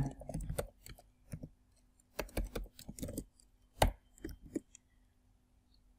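Typing on a computer keyboard: irregular key clicks in short runs with pauses, one key press louder about four seconds in.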